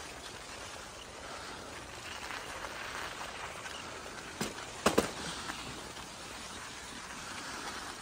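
Bicycle tyres rolling over packed snow, a steady crunchy hiss. About halfway through come a few sharp knocks, two of them close together and loudest.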